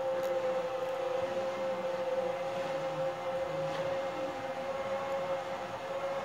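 Motorized roller shades lowering together, their motors giving a steady, even hum.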